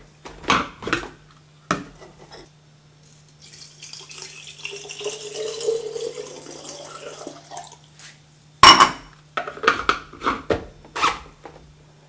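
Water poured from a glass jug into the reservoir of a home espresso machine for a few seconds, between the clicks and knocks of the machine's parts being handled. A sharp knock about two-thirds of the way through is the loudest sound, followed by several quick clunks. A low steady hum runs underneath.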